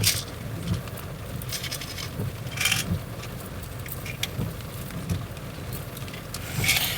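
Car cabin noise while driving: a steady low rumble of engine and road, with short scattered scrapes and crackles.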